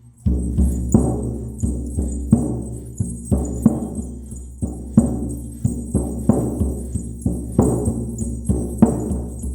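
Shamanic hand-held frame drum struck with a beater in an uneven, steady beat of about two to three strokes a second, each stroke booming deep and ringing on, with a high shimmering jingle sounding along.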